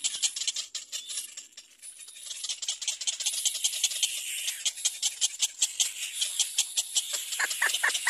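Little black cormorant chicks begging to be fed: a fast run of short, high-pitched cries, several a second. Near the end the cries grow louder and fuller.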